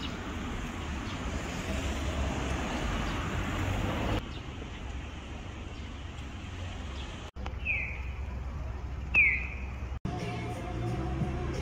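Street noise with a low traffic rumble, cutting off abruptly about four seconds in, then two short falling bird chirps about a second and a half apart. Near the end, after another abrupt cut, music starts.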